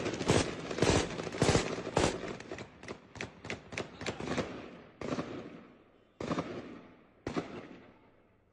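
Heavy gunfire from firearms: rapid, overlapping shots for the first four seconds or so, thinning to single shots about a second apart near the end, each followed by a long echo.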